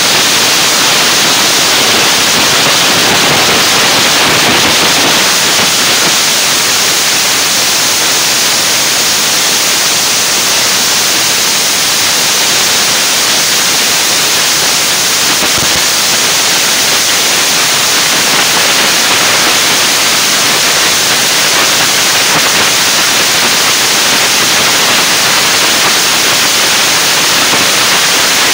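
Loud, steady hissing rush of noise that does not change, with no engine note or voice standing out of it.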